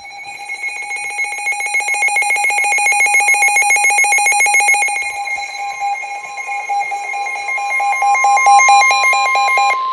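Emergency alert alarm tones for a severe thunderstorm warning: a rapidly pulsing electronic beep. About halfway in a steady single tone joins it and carries on after the beeping stops near the end.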